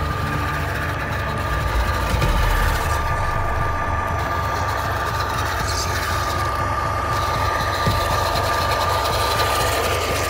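Brushless electric motors and drivetrain of a radio-controlled six-wheel-drive tracked semi-truck whining steadily as it crawls through mud.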